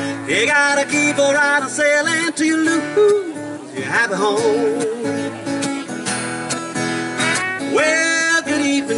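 Live country music: acoustic guitar strumming with a man singing, and a trumpet coming in near the end.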